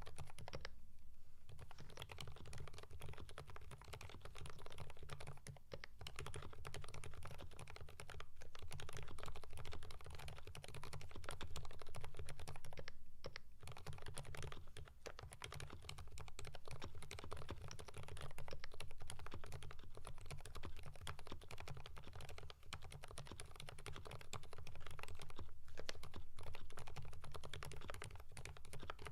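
Steady typing on a Keychron V5 mechanical keyboard with lubed Kailh Fried Egg silent switches and GMK Norse keycaps: a continuous run of soft keystrokes broken by a few brief pauses.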